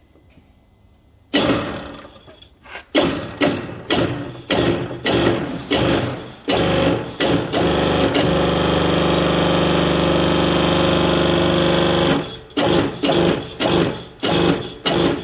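Shop press pushing a new silent block (rubber-metal bushing) into a truck suspension arm's eye. After about a second the press pump runs in short bursts about twice a second. It then runs steadily for about four seconds and goes back to bursts near the end.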